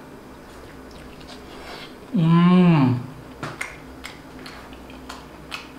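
A man chewing a mouthful of curried boiled egg: one long appreciative hum with a rise and fall in pitch about two seconds in, followed by short wet clicks of lips and mouth as he eats.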